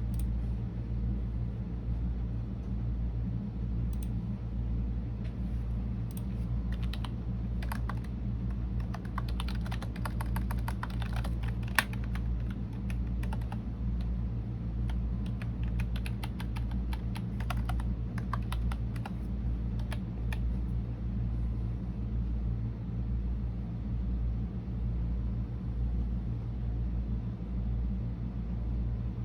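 Typing on a computer keyboard in uneven runs of quick key clicks, with one sharper click about halfway. The typing stops about two-thirds of the way through, leaving a steady low hum.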